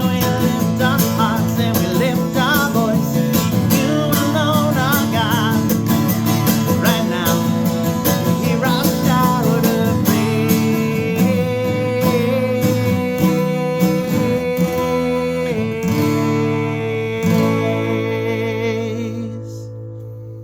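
Instrumental close of a worship song: band music with guitar and a wavering melodic lead over chords, settling into held chords and fading out over the last few seconds.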